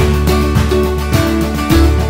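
Background music: strummed acoustic guitar with a steady bass and beat.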